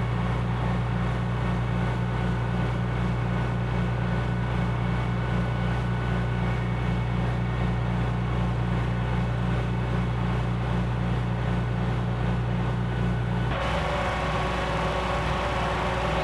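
Steady low mechanical hum with a strong drone and several steady overtones; its tone shifts abruptly near the end as the deepest drone drops away and a higher hum comes up.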